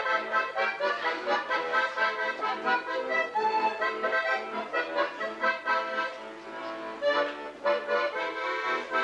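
Accordion playing a tune in quick, short notes with chords beneath, no singing.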